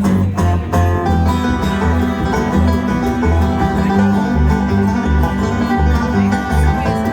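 Bluegrass band playing an instrumental opening: banjo picking and guitar over a steady bass beat of about two notes a second.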